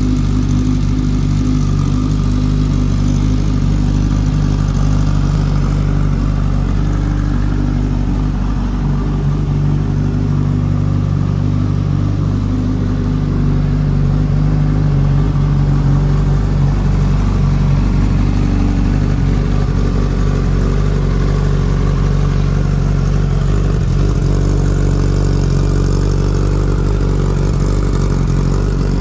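Suzuki GSX-S1000F's inline-four engine idling steadily.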